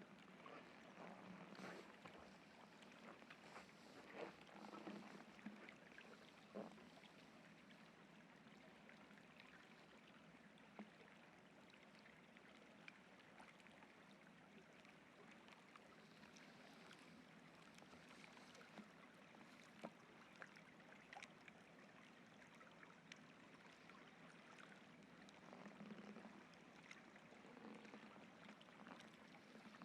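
Faint footsteps crunching in snow during the first few seconds and again near the end, over a steady faint rushing hiss with scattered small clicks.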